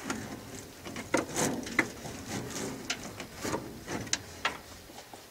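Hand tools clinking and scraping on metal in a truck's engine bay as fasteners are worked loose: a run of irregular sharp clicks and knocks with some rustling between them.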